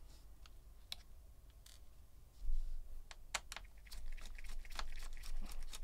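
Scattered light clicks and ticks of a Torx T5 screwdriver backing out the small trackpad screws of a 16-inch MacBook Pro, with the tool and screws tapping on the aluminium case. A dull low bump comes about two and a half seconds in.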